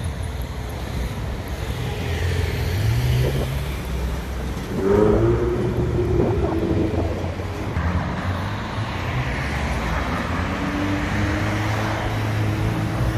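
A Ferrari 488's twin-turbo V8 accelerating and revving, with city traffic around it. The loudest rise in revs comes about five seconds in, and a second, steadier pull builds near the end.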